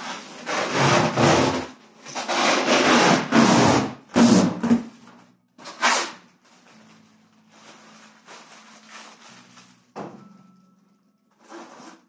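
Plastic packaging being handled and crumpled, in several loud rustling bursts over the first five seconds and then softer. A sharp click about ten seconds in and a last short rustle near the end.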